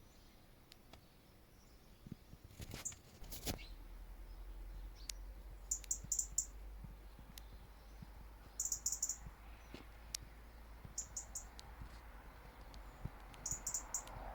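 Small birds calling: very high-pitched chirps in four quick clusters a few seconds apart, with a couple of sharp clicks about three seconds in.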